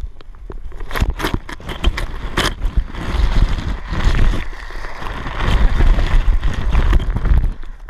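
A few sharp knocks, then from about three seconds in a steady scraping hiss with a low rumble as a rider slides down a wet plastic slip 'n slide sheet, the camera skimming just above the surface.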